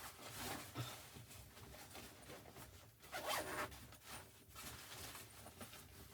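A zipper being pulled in two short rasping strokes, the second and louder one about three seconds in.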